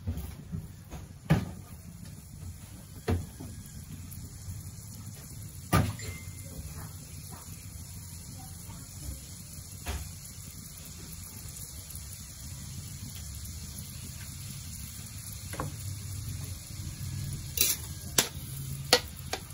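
A metal spatula knocks and scrapes against a metal wok several times near the end, stirring garlic in melted butter. Before that there is only a low, steady background hum with a few scattered knocks.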